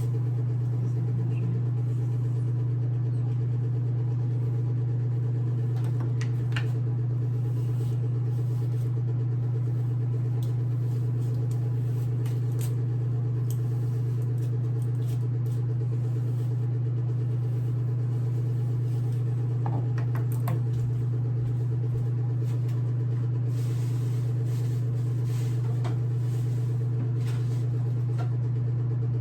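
Steady low mechanical hum, unchanging, with a few faint clicks and small knocks over it.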